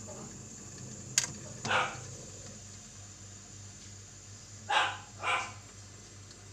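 A dog barking three times: once about a second and a half in, then two barks close together near the end. A sharp click comes just before the first bark, over a low steady hum.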